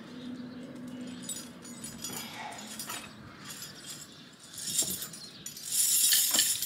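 Old rusty metal chain being handled, its links clicking and clinking, with a louder jangling rattle near the end as it is pulled up.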